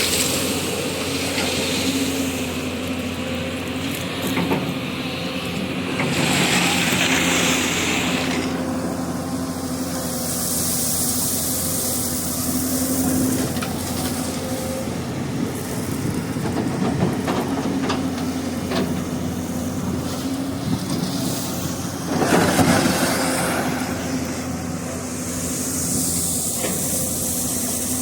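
Hyundai 215 crawler excavator working: the diesel engine runs steadily under load, with louder surges of hiss twice as the hydraulics work, and scattered knocks of stone.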